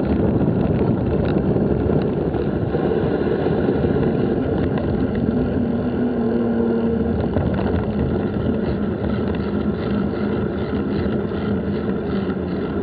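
Steady rumble of wind and rolling noise on an action camera's microphone while riding a bicycle, with a low steady hum standing out for a few seconds around the middle.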